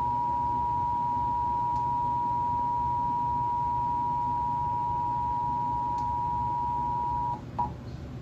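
Emergency Alert System two-tone attention signal, the two tones sounding together as one steady held tone over a faint hum, cutting off about seven seconds in and followed by a brief blip. It is the alert signal that precedes the message of a monthly EAS test.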